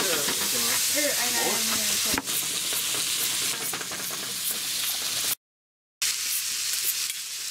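Pepper-crusted bear burger patties sizzling in a frying pan on high heat, a steady loud hiss of frying meat. The sound drops out for about half a second near the end.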